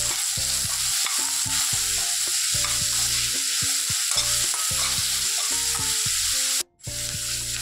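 Sliced vegetables sizzling in hot oil in a stainless steel kadai while a steel spoon stirs and tosses them. Near the end the sound drops out for a moment.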